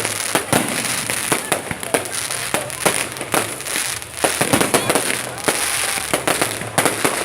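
Fireworks display: a rapid, irregular run of sharp bangs, several a second, over continuous crackling.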